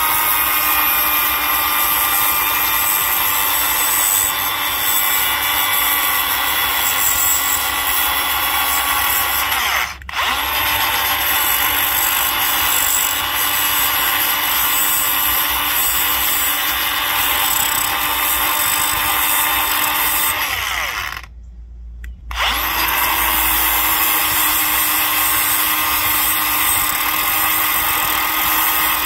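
Angle grinder with a Tiger Paw flap disc running with a steady high-pitched whine as it grinds down the end of the hub's inner axle sleeve, taking off 2 mm a little at a time. It runs in three long passes, with a momentary break about ten seconds in and a stop of about a second a little past twenty seconds.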